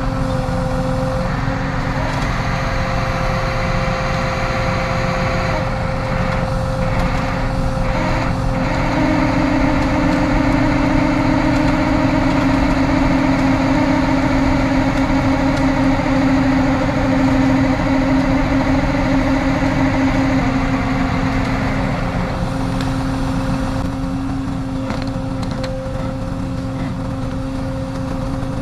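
Tow truck running steadily with a constant whine over the engine rumble. The whine grows louder about a third of the way in and eases back about two-thirds of the way through.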